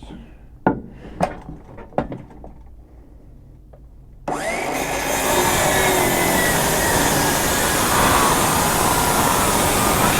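A few light knocks as wood blocks are handled, then about four seconds in a cordless power saw starts and cuts through a wooden block, its motor pitch slowly sagging under load. The battery is nearly flat.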